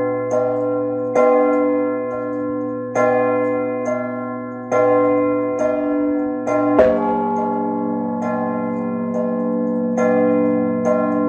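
Peal of large bronze church bells, struck by clappers pulled on ropes: one strike after another in an uneven rhythm, roughly every half second to second and a half, each bell ringing on under the next. The loudest strike comes about seven seconds in, and a deeper hum follows it.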